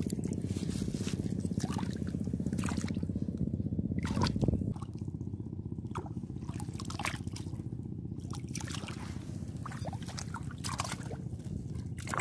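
A hand digging and scooping in wet sand under shallow seawater, with small irregular splashes and drips, as he digs out a buried clam. A steady low rumble runs underneath, dropping a little about halfway through.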